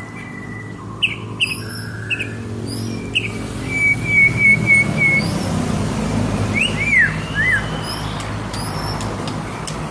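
White-rumped shama singing a varied song of short whistles, chirps and sliding notes, with a quick run of five repeated notes about four seconds in, over a steady low hum.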